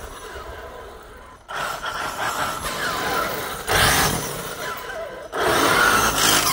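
A 1/5-scale brushless electric RC trophy truck (8S Rovan ELT) being driven hard on tarmac: motor and drivetrain whine with tyre noise, which is extremely loud. The sound comes in abrupt bursts, starting about a second and a half in, with short gliding whines as it speeds up and slows.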